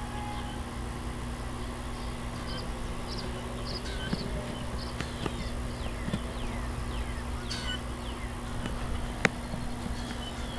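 Outdoor ambience: a steady low hum with scattered short, high chirps and a few quick falling whistles, and one sharp click about nine seconds in.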